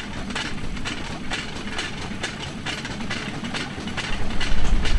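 Steel wheels of a rail bike rolling along the rails, with clicks from the rail joints a few times a second. A low rumble grows louder near the end.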